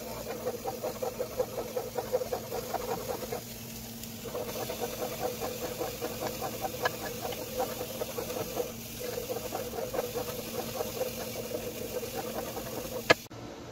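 Wooden spoon stirring a thin milk-and-coconut-milk mixture in a pot on a hot plate, scraping the bottom in quick rhythmic strokes to keep it from scorching. The strokes come in three stretches with short breaks, and there is one sharp click near the end.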